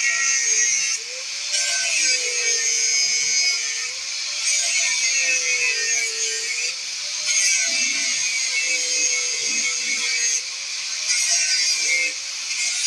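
Electric angle grinder cutting through a metal bracket on a trailer axle, a continuous high-pitched grinding. The motor's pitch sags and recovers every couple of seconds as the disc is pressed into the cut, with a few brief dips in loudness.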